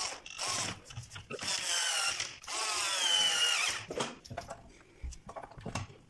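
Cordless drill-driver driving screws into a door lock's faceplate: a few short trigger blips, then two runs of about a second each, its motor whine rising and falling. Lighter clicks and knocks follow near the end.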